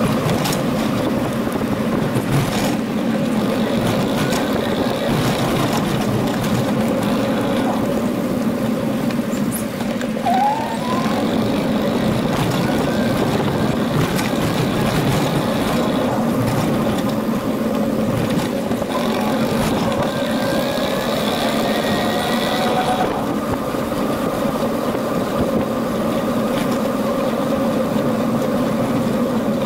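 Steady riding noise of a bicycle on paved paths, heard close from a camera on the handlebars, with a short rising squeak about ten seconds in.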